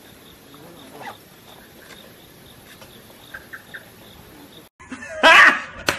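Crickets chirping faintly and steadily in the night, in an even repeating pulse. Near the end, after a sudden cut, a loud cry breaks in.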